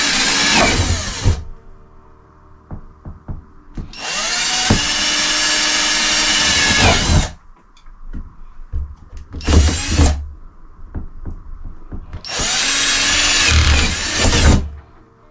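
Power drill boring holes through a fibreglass shower tray, in four bursts of about one to three seconds each. Each burst rises in pitch as the motor spins up and falls as it stops. Light ticks and knocks fill the gaps between bursts.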